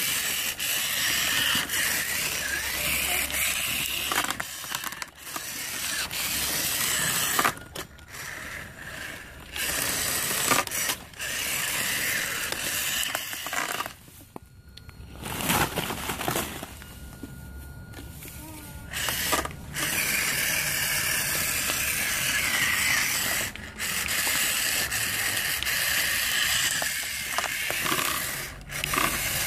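Radio-controlled toy monster truck's motor and gears whirring as it drives, cutting out briefly several times and starting up again.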